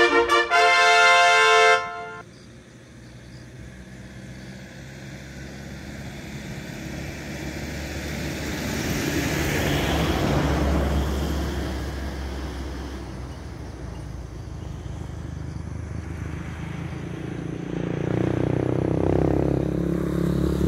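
A vehicle horn honks in a few quick toots, then holds for about two seconds and stops. A vehicle then passes on the road, its noise swelling to a peak about ten seconds in and fading away, and another engine approaches near the end.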